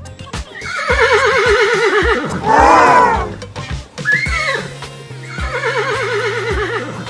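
A horse whinnying several times, each neigh quavering in pitch, the loudest about halfway through. Background music with a steady beat plays under it.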